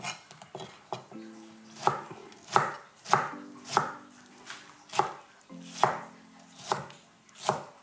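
Kitchen knife dicing a tomato on a cutting board: about a dozen sharp, evenly spaced chops, roughly three every two seconds.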